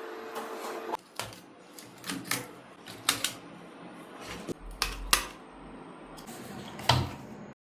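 A run of sharp clicks and knocks from small hard parts being handled, about a dozen spread irregularly over several seconds, cutting off abruptly near the end.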